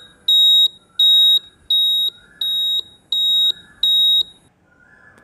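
Countdown timer sound effect: short high-pitched electronic beeps, one about every 0.7 seconds, with a fainter sound between each, marking the answer time running out. The beeps stop about four and a half seconds in.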